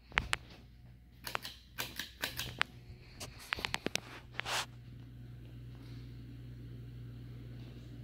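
Harbor Breeze Woodbridge 52-inch ceiling fan running with a steady low hum. A string of sharp clicks and rustles fills the first half or so, then only the steady hum is left.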